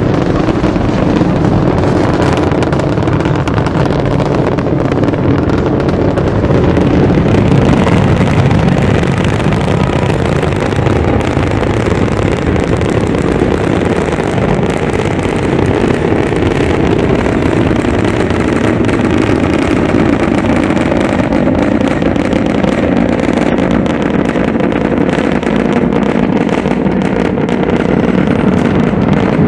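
Rocket launch roar: the solid rocket boosters and RS-25 main engines of a heavy-lift launch vehicle making a loud, steady rumble with a dense crackle throughout.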